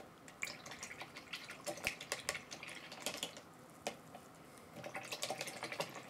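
Acrylic paintbrush being washed in a plastic tub of rinse water: faint splashing and light taps of the brush against the tub, more frequent near the end.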